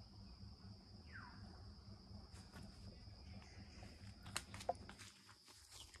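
Faint, steady, high-pitched insect chorus with a low rumble underneath. A brief falling chirp comes about a second in, and two sharp clicks a little past four seconds in.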